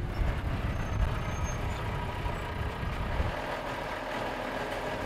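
Truck engine of a mobile crane idling with a steady low rumble.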